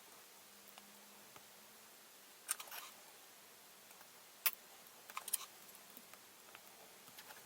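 Plastic model-kit parts being cut from the sprue with hobby nippers: a few sharp snips and clicks, with a short cluster a couple of seconds in, one loud snap about halfway, and another quick cluster just after it.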